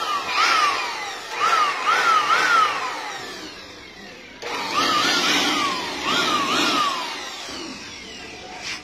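Handheld electric blower triggered in quick repeated bursts, its motor whine climbing fast and sinking back each time, about two bursts a second in two groups separated by a short lull, over a rush of air.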